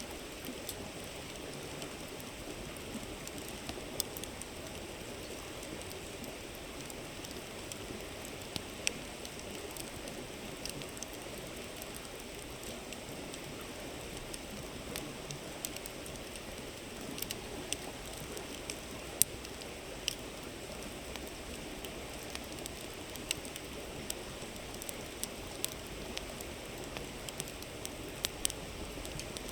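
Campfire crackling, with irregular sharp pops and snaps, over the steady rushing babble of a flowing river.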